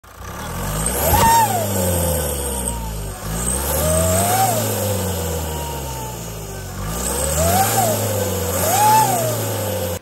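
Mazda Skyactiv engine revved four times with the turbo inlet open, a whistling turbo whine rising and falling with each rev. The turbo is very noisy because its shaft has a lot of play above about 3000 revs.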